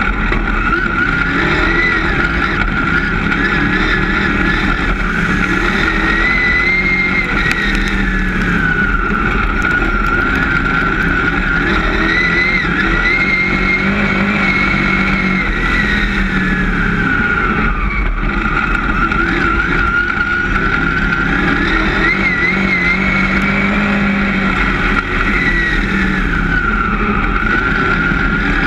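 Dirt-track race car's engine, heard loud from inside the cockpit under racing load. Its pitch climbs for several seconds as the throttle is held, then drops back, in a cycle repeating roughly every eight seconds.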